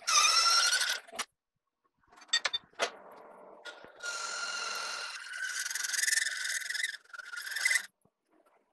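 Lathe boring bar cutting inside the end of a steel bar and giving off a high whining tone with overtones. The tone comes in two spells, about a second at the start and a longer one from about four seconds in, with a few sharp clicks between.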